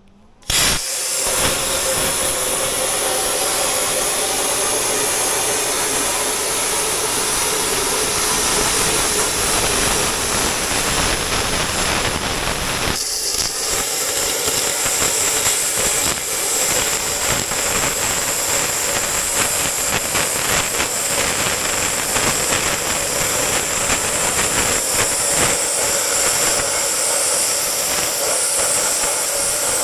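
Steady, loud hiss of a cutting torch cutting through the steel of a tow truck's bed, starting abruptly about half a second in, with scattered small crackles.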